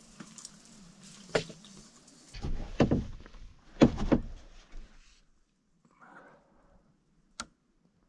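Wooden hut door being pushed open: a few loud, heavy thuds a few seconds in, then a single sharp click near the end.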